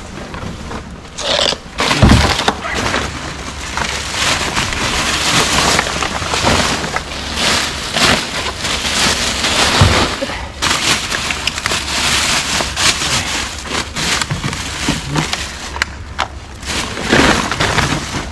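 Rummaging through bags of rubbish in a dumpster: continuous crackling and rustling of plastic bags and packaging with many small knocks. Heavier thumps come about two seconds in and again near the middle.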